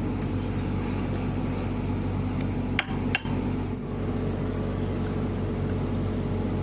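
Mini excavator's diesel engine running steadily, with two sharp metallic clinks of steel parts striking, close together about three seconds in.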